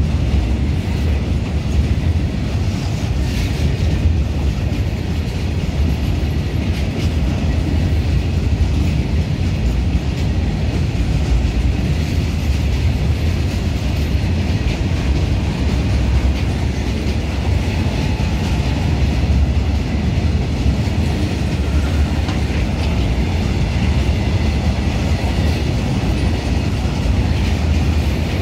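Open-top freight wagons rolling past at close range. Steel wheels on rail make a steady, heavy rumble, with scattered clacks over the rail joints.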